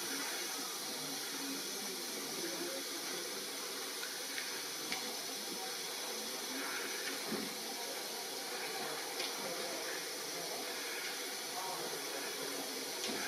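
Steady hiss, even and unbroken, with a few faint clicks.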